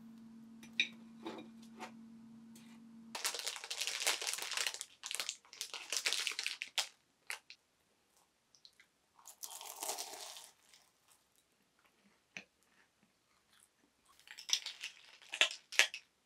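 A steady hum with a couple of light clicks of metal tongs on a perforated baking tray. About three seconds in, this gives way to loud crunching as a flaky, freshly baked croissant-style pastry is bitten into and chewed, with further bursts of crunching later.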